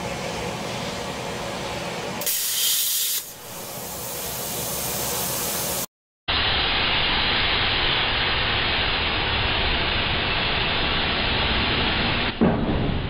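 Longevity Forcecut 40D plasma cutter torch hissing steadily with compressed air. A louder, sharper stretch comes about two seconds in. The hiss breaks off abruptly around the middle and then resumes steadily.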